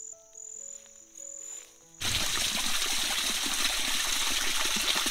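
Soft background music over a high chirping cricket, then about two seconds in a sudden change to spring water trickling and splashing down a wet rock face, steady and much louder.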